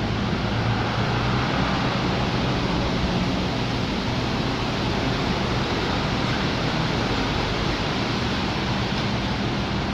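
2015 Honda Accord's 3.5-litre V6 engine running steadily at idle, heard as an even whir with a low hum. The engine has the cylinder misfire (codes P0301–P0303) that was traced to the rear camshaft being out of time on the timing belt.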